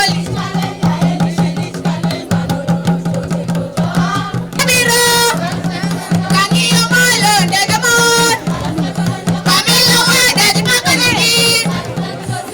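Live folk music: voices singing with fast drum and percussion beats, over a steady low hum.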